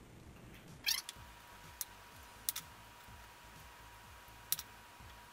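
A brief high squeal about a second in, followed by a few sharp clicks and taps as garden shears and a knife are handled and set down on a plastic cutting board; a faint steady high tone runs underneath from about a second in.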